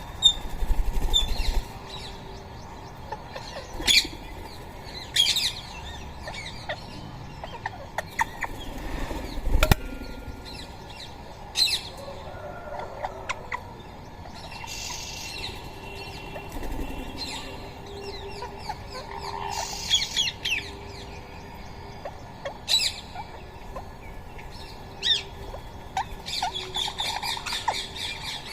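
Rose-ringed parakeets at a feeder: wings flapping and short, sharp high calls and chirps scattered irregularly, with a few low thumps, the loudest near the start.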